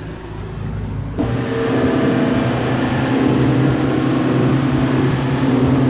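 Twin 150 hp outboard motors pushing a boat along at cruising speed: a steady engine drone over the rush of wake and wind. About a second in, the sound jumps to a louder, steady drone.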